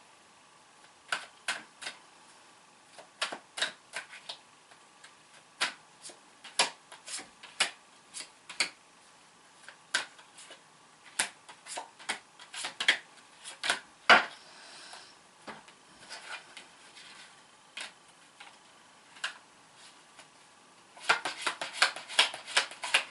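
Tarot cards being handled on a table: irregular sharp clicks and taps, with a quick run of many clicks near the end.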